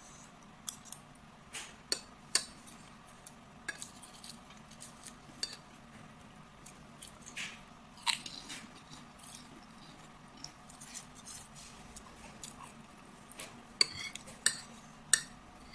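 Eating sounds: a metal spoon clinking and scraping on a ceramic plate, with chewing between the strokes. The sharpest, loudest spoon clinks come near the end.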